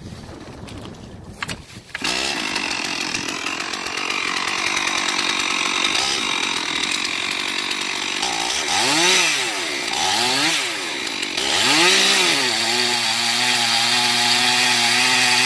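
Stihl MS 461 two-stroke chainsaw with a 24-inch bar cutting into an oak trunk at full throttle, making the high bottom cut (plate cut) of a felling notch. It comes in loud about two seconds in. Later its engine pitch rises and falls a few times, then holds steady.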